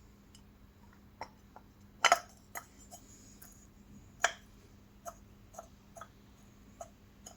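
Irregular light metal clicks and taps from a Mamba compressor housing being handled on a Mitsubishi TD04 turbo core, with two louder knocks about two and four seconds in.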